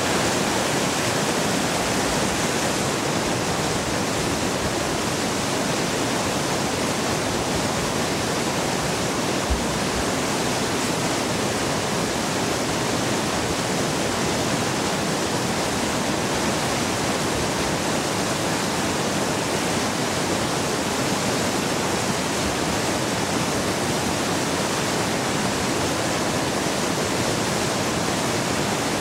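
Water pouring through a river dam's spillway into churning whitewater: a steady, loud rushing that does not change.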